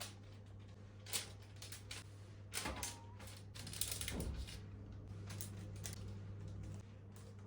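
Kitchen items being handled: a series of short clicks and knocks, with a brief ringing clink about three seconds in and a busier clatter soon after, over a steady low hum.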